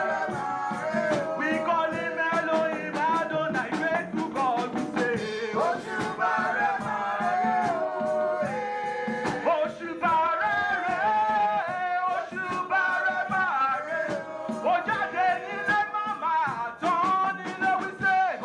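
Live church praise-and-worship music: singing of a Yoruba praise song over rhythmic percussion with shakers.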